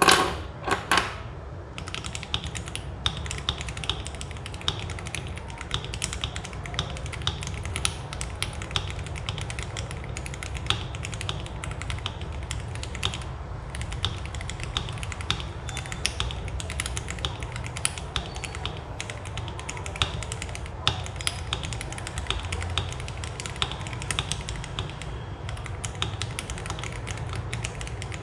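Mechanical keyboard with lubed Akko Jelly Starfish linear switches being typed on in a steady, fast stream of keystroke clacks. The switches are lubed with a 1:1 mix of 205g0 and 105, and the springs are shaken in 105. A few louder strikes come in the first second.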